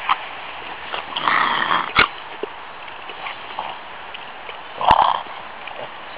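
French bulldog's short noisy sounds as it rolls in the grass and sits up, with a sharp click about two seconds in and the loudest burst about five seconds in.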